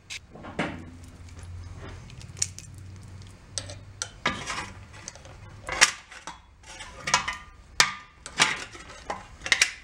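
Steel roller chain clinking and rattling against the aluminium cowling and flywheel of a 1937 Sears Waterwitch outboard as it is wrapped around the flywheel, with a few sharper clanks of the locking pliers holding it. The chain is being rigged to hold the flywheel from turning.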